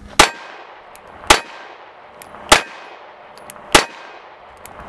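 Four shots from a Springfield Armory Hellcat RDP 9mm micro pistol firing through its self-indexing muzzle compensator, evenly paced about a second and a quarter apart, each with a short echoing tail.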